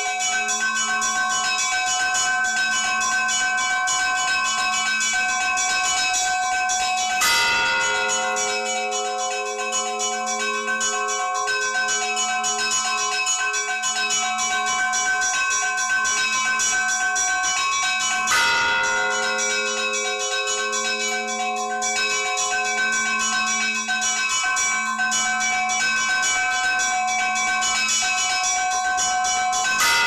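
Russian Orthodox church bells ringing a zvon: small bells chime quickly over a steady, evenly pulsing lower bell. A heavier stroke with a long ring comes about every eleven seconds, three times.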